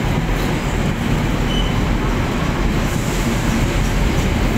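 Container wagons of a waste freight train rolling past at close range: a loud, steady rumble of steel wheels on rail.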